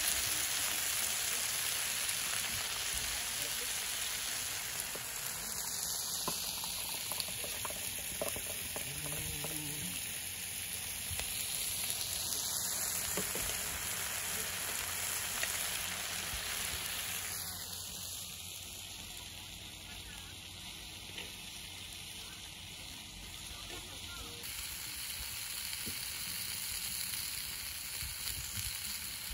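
Pork sizzling steadily as it fries on a hot griddle pan over a wood fire, with occasional light clicks of metal tongs turning the pieces. About 24 seconds in the sizzle changes to pork steaks frying in a cast iron skillet.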